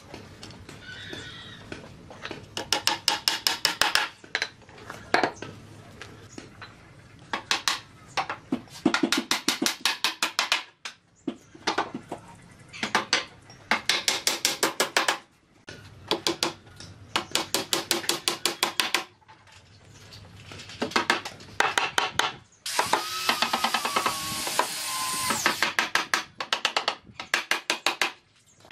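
Woodworking tool noise: repeated bursts of rapid tapping strikes on wood, several a second, each burst lasting a second or two. Near the end a power tool runs steadily for about three seconds.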